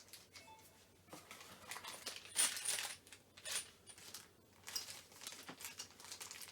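Small metal fixings and tools clinking and rattling as they are handled, with a few brief metallic rings.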